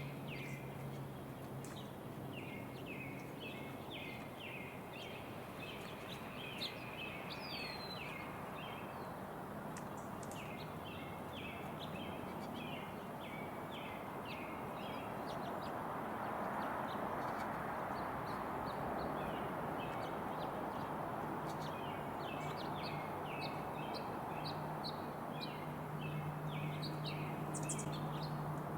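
Wild songbirds calling in quick series of short notes, over a steady rushing background noise that grows louder about halfway through, with a faint low hum.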